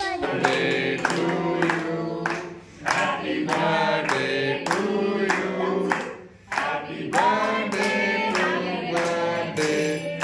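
A group of voices singing together, with steady clapping in time, in phrases that break briefly twice.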